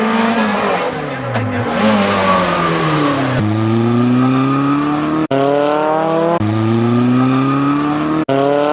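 Rally car engines revving hard under acceleration, the pitch climbing through each gear and dropping sharply at a shift. The sound cuts off abruptly a few times as one car's run is spliced to the next.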